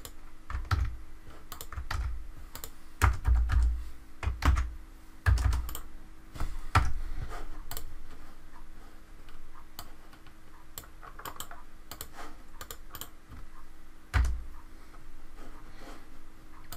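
Computer keyboard typing in irregular runs of keystrokes, with a few heavier dull thumps among them, the loudest about three to five seconds in and again near the end.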